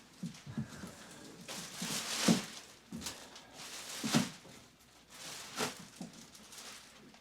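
Irregular knocks, thuds and rustling in a small room, as of objects being handled and moved about; the loudest knocks come about two seconds in and about four seconds in.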